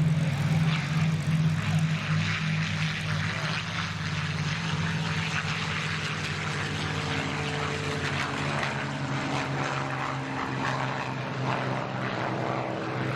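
Propeller-driven aircraft engine droning overhead, loudest in the first few seconds and then easing off a little as it carries on.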